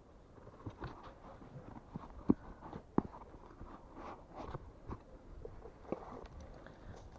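Footsteps crunching through dry dead grass, with two sharp cracks underfoot a little after two and three seconds in.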